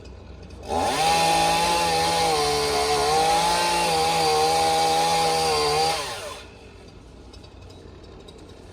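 Chainsaw engine at high revs for about five seconds, its pitch sagging briefly midway, then throttling back and dropping away.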